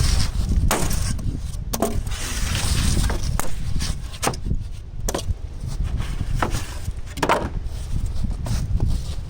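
Scattered knocks and rubbing as rigid foam insulation board is handled and fitted against beehive boxes, over a steady rumble of wind on the microphone.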